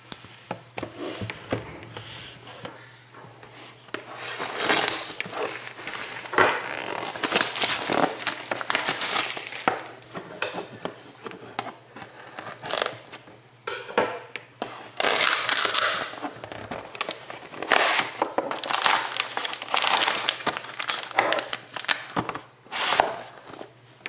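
Plastic wrapping and packaging on a sealed trading-card box being torn open and crinkled by hand, in irregular rustling bursts and sharp crackles, over a faint steady low hum.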